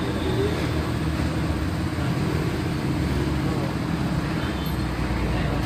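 Steady low rumble of a motor vehicle engine running in the background.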